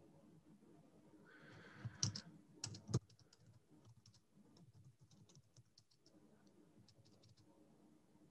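Typing on a computer keyboard: a few louder key strikes about two and three seconds in, then a run of light, quick keystrokes.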